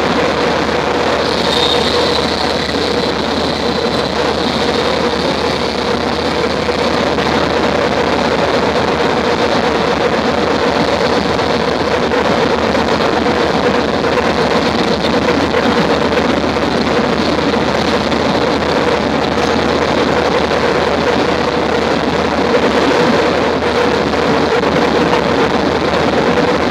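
Loud, dense wall of electronic noise from synthesizers and keyboards played through amplifiers, with a held drone tone underneath. A high whine comes in about a second and a half in, then fades.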